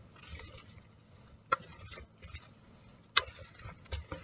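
Wooden spoon tossing chopped cucumber, tomato and onion in a mixing bowl: a wet rustling of the vegetables, with the spoon knocking sharply against the bowl twice, about a second and a half apart.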